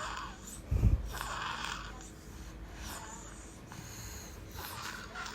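A baby snoring: noisy, rasping breaths come every second and a half to two seconds. A single dull thump sounds about a second in.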